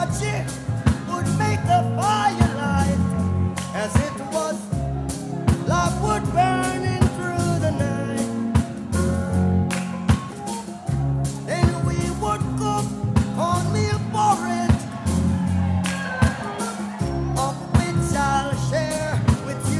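Reggae song with a sung vocal over a heavy bass line and a steady drum beat.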